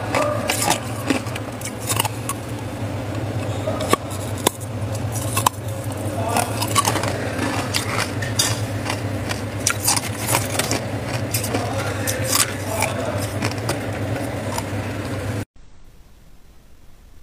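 Ice cubes in an ice chest clinking and scraping against one another as they are stirred by hand, many sharp clicks over a steady low hum. The sound drops away abruptly near the end.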